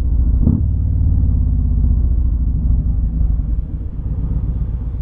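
Motorcycle engine running at low road speed, a steady low rumble with wind and road noise and one brief thump about half a second in. It grows gradually quieter toward the end.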